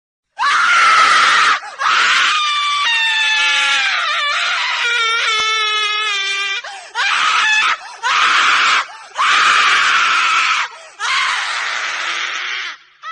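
A woman screaming in a performance: a short scream, then a long drawn-out one whose pitch wavers and falls partway through, then four shorter screams with brief breaks between them.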